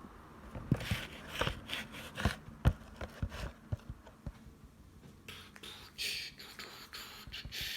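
Light, irregular metallic clicks and scrapes as a lock pick and tension wrench work the pin stack inside a Brinks padlock with spool pins.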